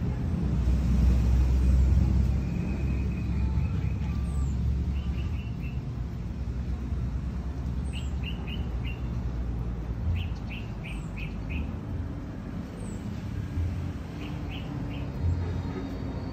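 Small birds chirping in quick runs of four or five notes, repeated several times, with an occasional thin high downward note, over a steady low rumble.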